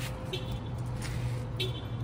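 A steady low hum with a few short high-pitched chirps about a second apart.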